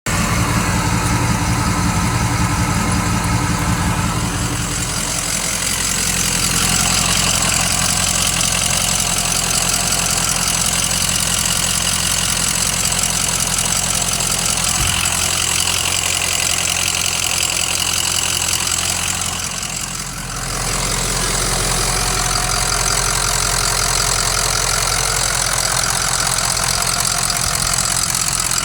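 Ford 6.0 Powerstroke turbo-diesel V8 in a 2004 F-250 idling steadily, warmed up after a couple of hours of driving. The low engine note shifts about four to five seconds in, and the sound dips briefly about twenty seconds in.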